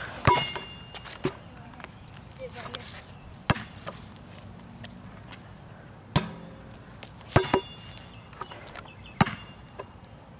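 A basketball clangs off a metal hoop rim and backboard, each hit leaving a short ringing tone, and thuds as it bounces on concrete: a string of sharp hits a second or more apart.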